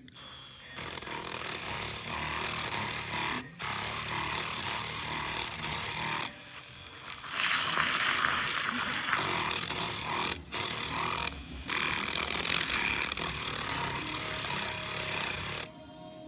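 Zulay Kitchen battery-powered handheld milk frother running, its small motor spinning the whisk with a noisy whir. It stops and starts again several times as the button is released and pressed, and runs louder for the second half.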